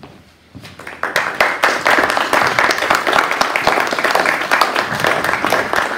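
Congregation applauding: the clapping starts about a second in and keeps up steadily, many hands at once.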